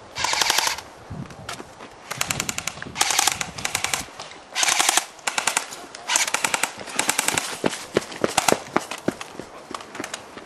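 Airsoft rifle firing on full auto in repeated short bursts of about half a second, each a rapid rattle of shots, with shorter bursts and single shots near the end.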